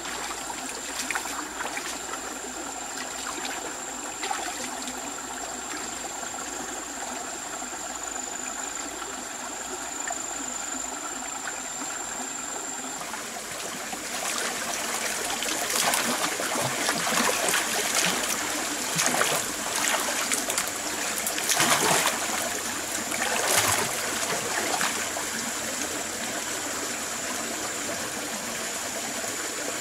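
Stream water running and trickling steadily, with a louder, irregular stretch of short knocks and splashes in the middle.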